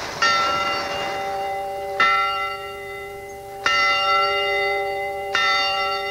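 Church bell swung by its wheel, tolling four strokes a little under two seconds apart, each ringing on into the next. It is rung to welcome a musher arriving at the checkpoint.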